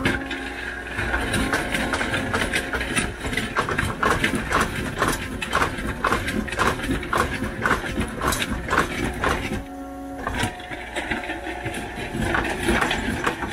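Caterpillar compact track loader running with a hydraulic auger attachment drilling a fence post hole: a steady engine drone, with a rhythmic knocking at about two or three knocks a second through the middle that stops about ten seconds in.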